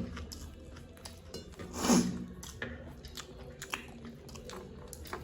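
Close-up chewing and crunching of crisp food, a series of quick crackling bites, with one louder burst about two seconds in.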